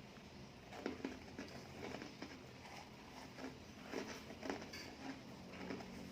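Faint, irregular clicks and taps of someone eating, cutlery against a plate.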